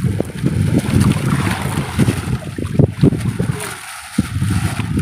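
Wind buffeting the microphone over sea water washing against an outrigger boat, with scattered knocks and splashes as a fishing net is hauled aboard by hand. The low wind rumble drops away briefly near the end.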